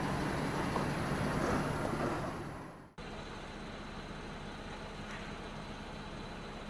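A car running with steady engine and tyre noise that fades away about three seconds in. After a cut, a quieter, even engine hum follows.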